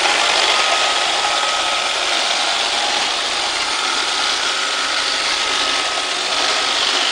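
iRobot Roomba 560 robot vacuum running its cleaning motors, a steady whirring hiss with a faint high whine, switching on suddenly.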